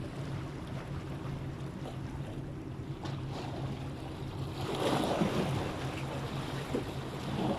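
Steady low motor hum with wind and water noise, swelling briefly louder about five seconds in.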